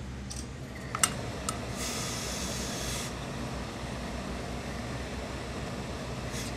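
Tailor's steam iron pressing a suit seam: a couple of sharp clicks about a second in, then a hiss of steam for about a second. A steady low hum runs underneath.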